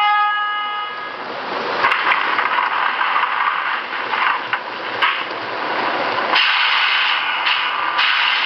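Sound-equipped MTH model subway trains running on the layout track: a steady electric-train running sound with wheel noise, stepping up in loudness about six seconds in as the R40 slant train approaches. A few sharp clicks come through.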